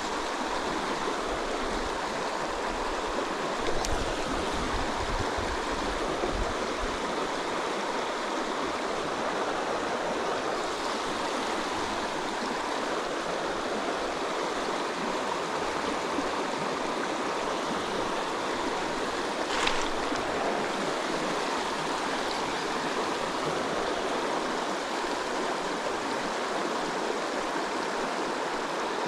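Flowing stream water rushing steadily, with a brief sharp click a few seconds in and another about two-thirds of the way through.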